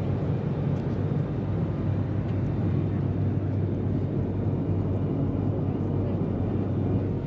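Steady drone of an airliner's engines heard from inside the cabin, a constant low hum with airy rush over it.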